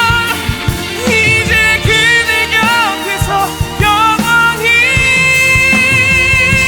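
Male vocalist singing a pop ballad over a band backing track, with a melismatic run that ends in a long held high note near the end.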